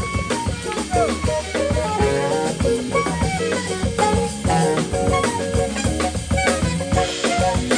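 Live jazz band playing: an alto saxophone plays a moving lead line over drum kit, with the band accompanying.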